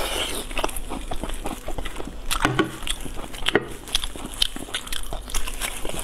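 Close-miked eating sounds: wet chewing and lip smacks with many irregular clicks, along with braised meat being torn apart in plastic-gloved hands.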